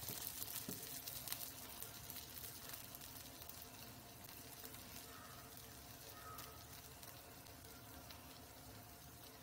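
Dosa batter cooking in a four-cup pan on a gas burner: a faint sizzle with fine crackles that slowly dies down.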